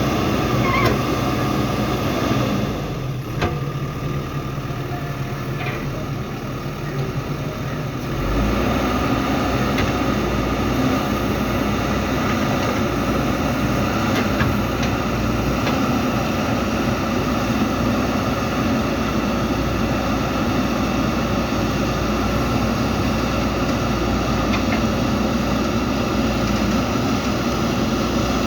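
Diesel engine of a JCB 3DX backhoe loader running while it works, a steady engine drone. It eases off about three seconds in and picks up again at about eight seconds with a deeper rumble, as the engine comes back under load.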